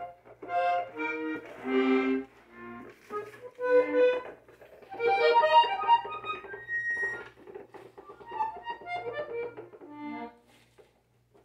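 Gabanelli norteño button accordion being tried out by a beginner: short, halting notes and chords squeezed out one after another with gaps between, no tune. The notes die away about a second before the end.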